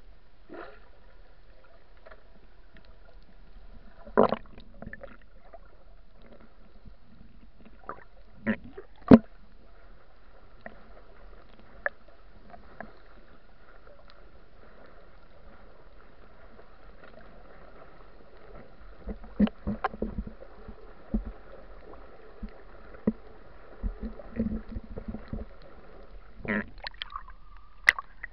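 Muffled underwater ambience: a steady faint hum of several tones with scattered sharp knocks and clicks, some in quick clusters. Near the end it turns to louder splashing as the camera comes up through the surface.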